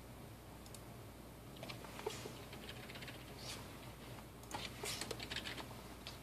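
Computer keyboard keys clicking in two short runs of typing, the second denser than the first, over a faint steady low hum.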